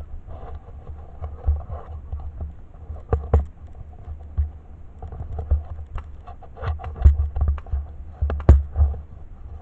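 Handling and movement noise on a moving camera's microphone: irregular low thumps with scattered sharp knocks and some rustling, heaviest near the end.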